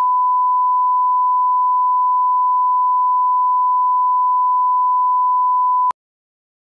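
1 kHz line-up reference tone of a bars-and-tone programme leader, the tone used to set audio levels: one steady pure beep that cuts off abruptly about six seconds in.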